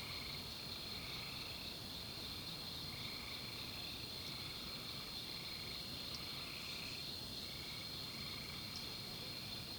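Night insect chorus: crickets keep up a steady high-pitched trill, with shorter, lower calls repeating every second or so.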